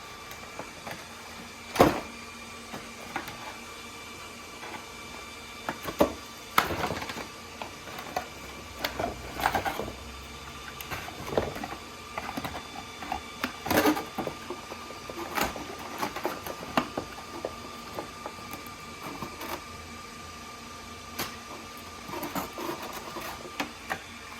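Cardboard box and plastic packaging being handled as an RC car is taken out: irregular clicks, knocks and rustles, with a sharp knock about two seconds in and clusters of handling noise through the middle. A faint steady hum sits underneath.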